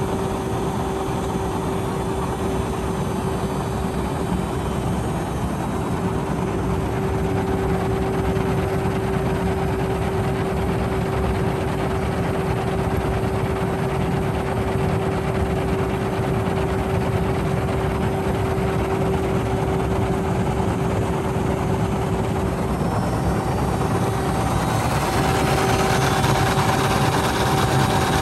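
Car wash friction brushes with black foam-cloth wraps spinning and slapping against a car body, over a steady motor hum. The swishing grows louder and brighter near the end.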